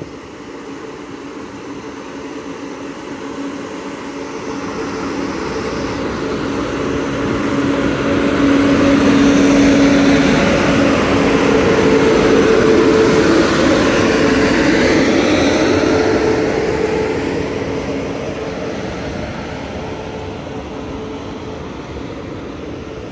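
A long-distance express train passing by: the rumble and rattle of the train swells to a peak about eight seconds in, holds for several seconds and then slowly fades as it goes away.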